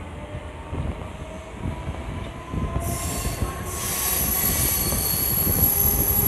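Electric suburban local train running, heard from an open doorway: a rough rumble of wheels on track that grows louder. About three seconds in, a high, steady wheel squeal comes in and strengthens about a second later.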